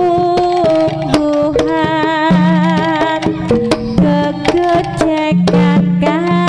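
Live Javanese jaranan music: kendang drum strokes over a gamelan ensemble, with a sung melody held in long, wavering notes.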